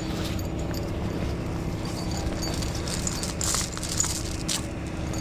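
Steady low rumble of an idling vehicle engine, with scattered light clicks and scrapes as a tow light is shifted about on a car roof.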